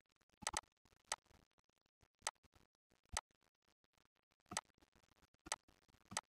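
Computer mouse clicking, about seven short, faint, separate clicks at uneven intervals, the first one doubled.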